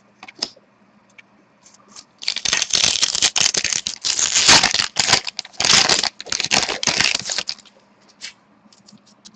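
Foil wrapper of an SPx hockey card pack being torn open and crinkled by hand: a dense crackling rustle from about two seconds in, dying away to scattered small clicks of the cards near the end.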